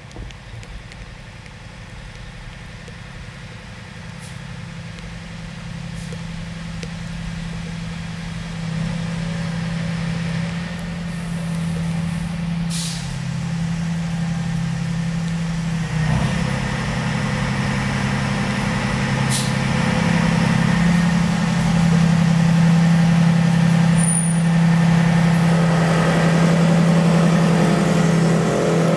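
BNSF diesel locomotives leading a double-stack intermodal freight train approach slowly and pass, their engines' steady low drone growing louder throughout. Two brief high squeals cut in partway through. The recording is played slightly sped up.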